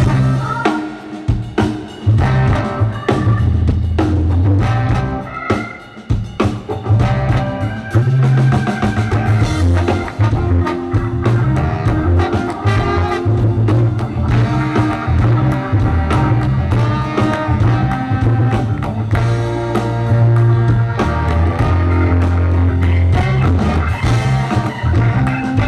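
Live rock band with drum kit, bass, guitar and Hammond B3 organ playing the instrumental solo section of a song, the start of a keyboard solo.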